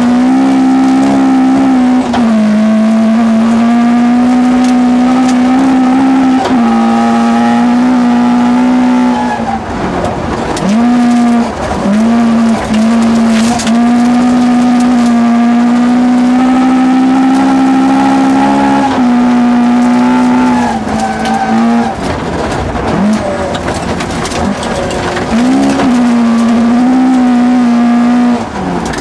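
Toyota Corolla GT 1600 rally car's engine, heard from inside the cabin, running at high, steady revs under load, with the revs dropping briefly about eight times before climbing back.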